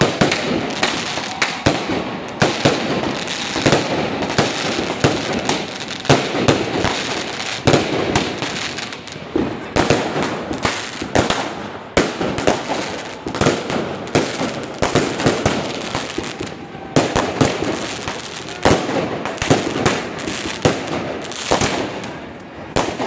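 Ground-placed consumer firework cakes firing a rapid, unbroken barrage of shots, with bursts and crackle overhead.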